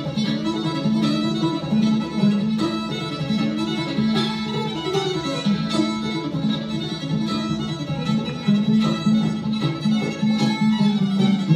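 Fiddle and banjo playing an old-time Appalachian tune together live: the fiddle bows the melody over the banjo's steady plucked rhythm.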